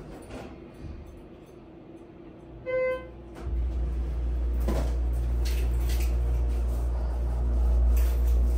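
A short electronic beep, then a car engine starts and runs on as a steady low rumble, heard from inside the car.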